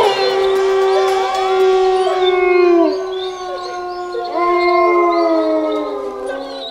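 Wolf howling: two long, held howls. The first slides down in pitch about three seconds in, and the second starts a second or so later and falls away near the end.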